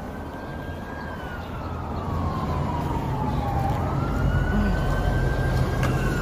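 Ambulance siren in a slow wail, rising and falling in pitch and growing louder, over a low steady rumble of street traffic.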